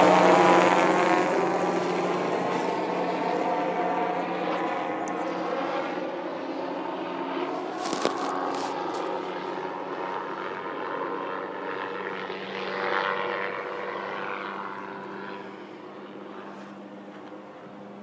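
Helicopter flying low overhead, its engine and rotor loud at first and fading slowly as it moves away.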